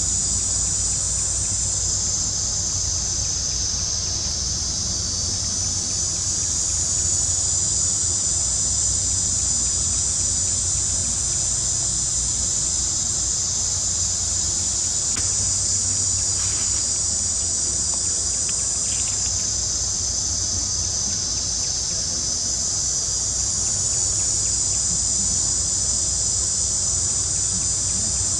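Steady high-pitched chorus of forest insects, swelling and easing slowly in loudness, with a faint low rumble underneath.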